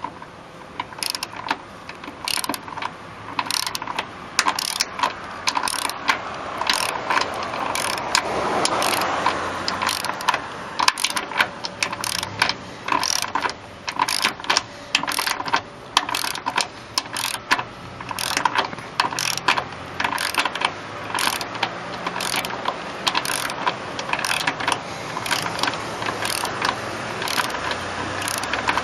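Ratchet of a torque wrench clicking in quick, irregular runs of short strokes, tightening a hood strut mounting stud down snug.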